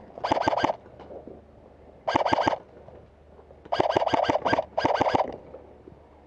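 Airsoft rifle firing four short automatic bursts of rapid clicking shots, with brief pauses between them.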